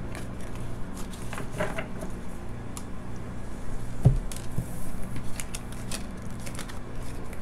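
Oracle cards being handled and gathered up off a table: light clicks and slides of card stock, with one soft thump about four seconds in, over a low steady hum.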